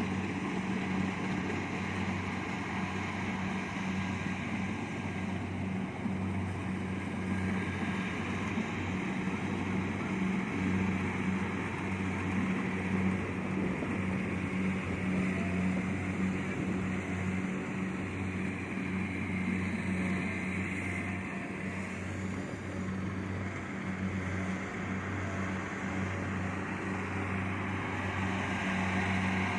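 Kubota DC70 Plus rice combine harvester running steadily, its diesel engine giving a constant low drone.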